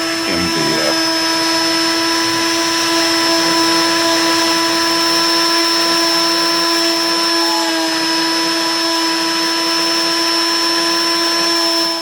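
A DIY Sidewinder CNC router carving MDF: the router spindle runs with a steady whine over a hiss of cutting.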